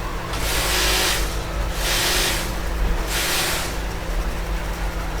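Three short hissing blasts of pressurized gas, each under a second, during work on a phone circuit board, over a steady low hum.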